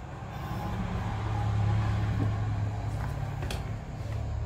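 A loudspeaker driven by a homemade TDA2040 12 V amplifier, playing deep, steady bass that drops to a lower note about three seconds in.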